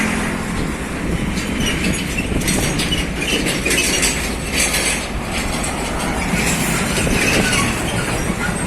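A heavy truck passing close by, its engine running while the trailer and its load rattle and clank loudly.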